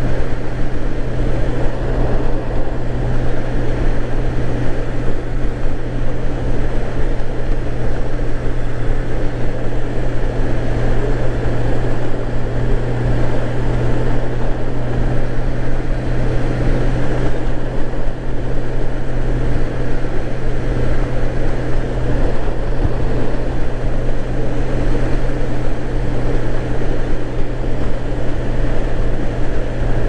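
Honda GL1800 Gold Wing on the move: the flat-six engine's steady drone mixed with rushing wind and road noise, holding an even pitch with no revving or gear changes.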